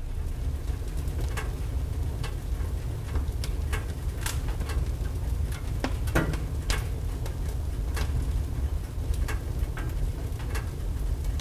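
A wood fire burning in a stove: a steady low rumble with irregular sharp pops and crackles throughout.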